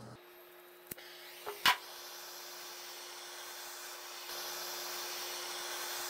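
Handheld gas torch: two sharp clicks about a second in, then its flame hissing steadily, getting louder about four seconds in. The flame is heating a steel crankshaft timing gear so that it expands enough to slide onto the crank.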